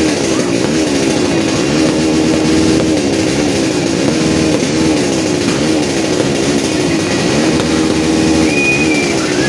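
An engine being revved over and over, its pitch swinging up and back down about once a second, steady and loud. A brief high whistle sounds near the end.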